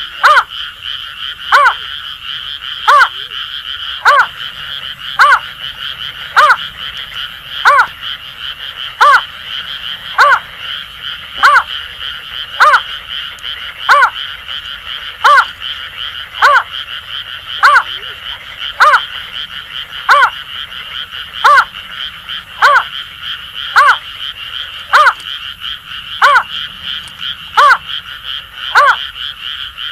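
Greater painted-snipe calling: a short hooting note repeated evenly about every 1.2 s. Behind it, Asian grass frogs keep up a steady high-pitched chorus.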